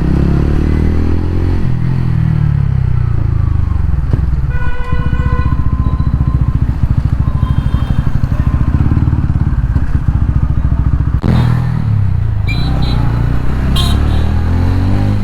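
TVS Ronin 225's single-cylinder engine running under way, its pitch rising and falling as the rider speeds up and eases off. A short horn-like tone sounds about four and a half seconds in.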